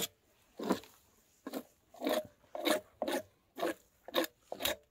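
Knife cutting and scraping through a large pike on a wooden board: a series of short crunching strokes, about two a second.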